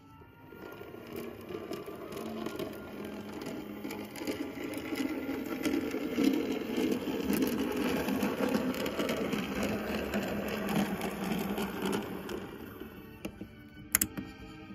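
Small electric motor and gear train of a 2mm-scale Raven 4-6-2 model locomotive chassis whirring as it runs along the track. It grows louder over the first six seconds and fades over the last few, with a sharp click about fourteen seconds in.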